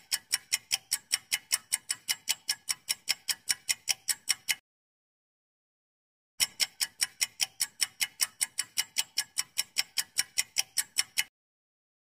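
Clock-ticking sound effect for a quiz countdown timer: quick, evenly spaced ticks that stop for about two seconds, start again, and cut off shortly before the end.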